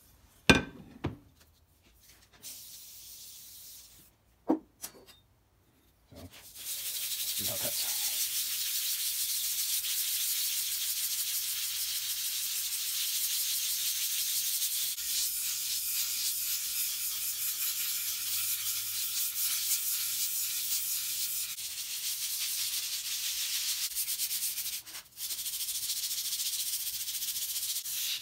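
A few sharp knocks in the first seconds. From about six seconds in comes steady scratchy rubbing as the back of a Stanley No. 5 plane iron is lapped back and forth on abrasive paper over a granite surface plate, to flatten it and grind out rust pitting. The rubbing breaks off briefly near the end.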